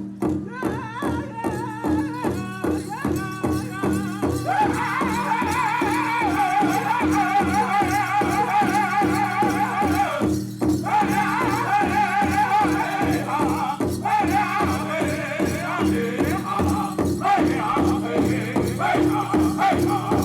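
Powwow drum group singing a grass dance song: men's high voices over a big drum struck in a steady beat, about two to three strokes a second. The singing grows fuller about four seconds in.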